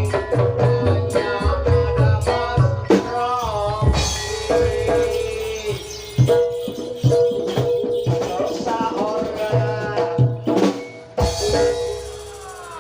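Live Jaranan Dor ensemble music: drums and rattling percussion keep a regular beat under a held note and a bending melodic lead line.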